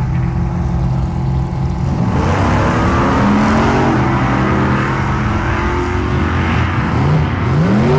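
Two drag racing cars launching off the starting line and accelerating down the strip. Their engines hold steady revs on the line, then about two seconds in get louder, with the pitch rising, dropping back and rising again as they pull away.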